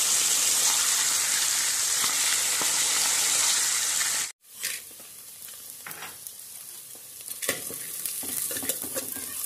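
Fish pieces deep-frying in hot oil, a loud steady sizzle that cuts off suddenly about four seconds in. After that, quieter clicks and scrapes of a spoon stirring fried onions and raisins in a pot.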